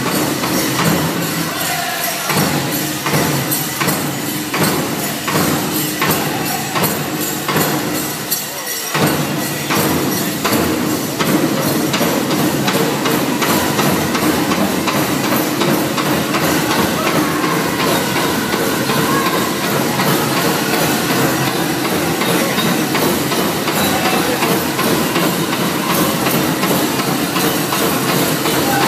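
Pow wow drum group playing a grand entry song: a big drum struck in a steady, even beat with voices singing over it, and the bells and jingles of the dancers' regalia clattering along.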